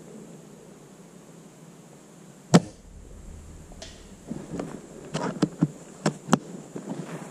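A single shot from a spring-powered bolt-action airsoft sniper rifle: one sharp crack about two and a half seconds in, the loudest sound, with a short low thud after it. From about four seconds in comes a run of clicks and clacks as the bolt is worked to cock the spring and chamber the next BB.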